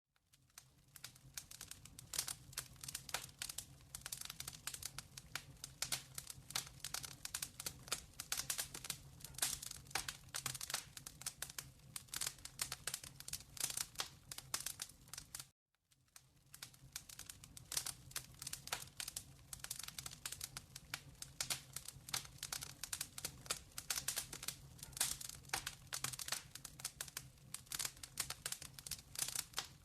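Wood fire crackling and popping, with a faint steady low hum underneath; the sound cuts out for a moment about halfway through.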